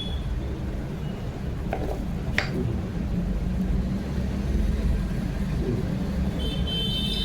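Steady low rumble of street traffic, with a single sharp click about two and a half seconds in and a high, steady whistling tone starting near the end.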